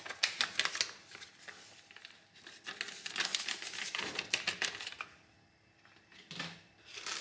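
Small plastic zip bag crinkling as it is handled and emptied of powder, in short crackly spells right at the start and again from about two and a half to five seconds in.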